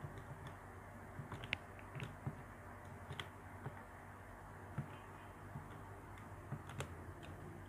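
Faint, irregular clicks of keys being pressed on a Casio scientific calculator, over a low steady hum.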